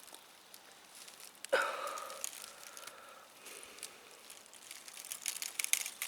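Faint crackles and rustling as a magnet-fishing rope is worked in a well, the magnet catching on something at the bottom. A brief pitched sound comes about one and a half seconds in, and the crackling thickens near the end.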